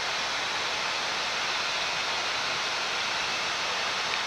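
Steady, even hiss of a Boeing 787-9 flight deck in flight on approach: airflow and ventilation noise, with no tone or rhythm in it.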